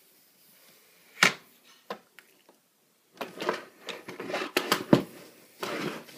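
Clicks and rattles of an AR-15 rifle being handled. There is one sharp click about a second in, then a busier run of clatter from about three seconds in as the rifle is moved about.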